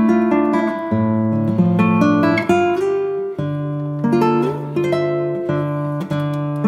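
Background music: an acoustic guitar playing.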